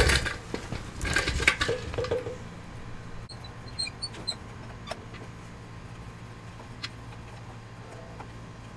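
Small screwdriver scraping and clicking as the screws are backed out of a motorcycle light's lens, a cluster of handling clicks in the first two seconds, then a few light ticks and single clicks over a faint steady hum.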